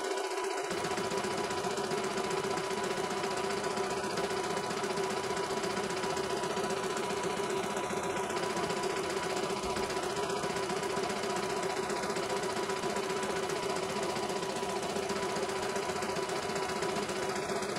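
CNY E900 computerized embroidery machine running steadily, its needle stitching a test design into fabric in the hoop, with a constant motor hum. It runs smoothly.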